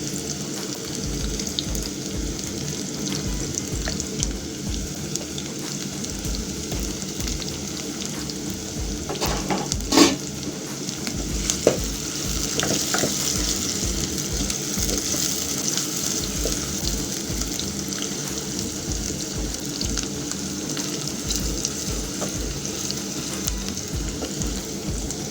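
Chopped onion and cumin seeds sizzling steadily as they fry in hot oil in a pan, with a couple of sharp knocks about ten and twelve seconds in.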